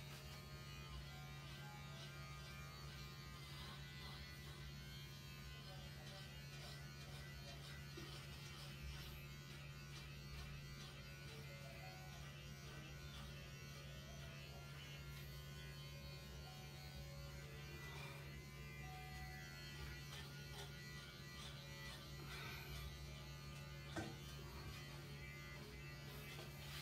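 Electric pet hair clippers running with a steady low buzz while shaving a cat's coat short, with a single click near the end.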